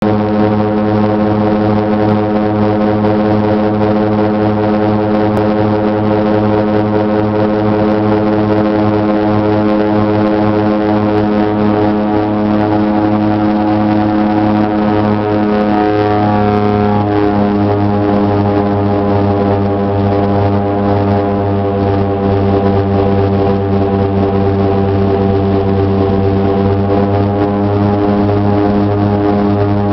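Twin-engine turboprop airliner's engines and propellers running with a steady, loud drone. The tone shifts slightly a little past halfway through.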